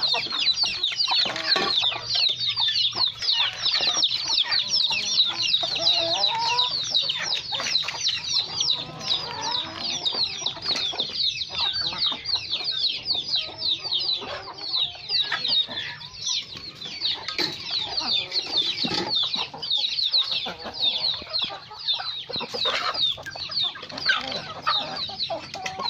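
A flock of chicks and young chickens peeping constantly in short, high-pitched calls, several a second, with hens clucking now and then and beaks tapping as the birds peck at feed.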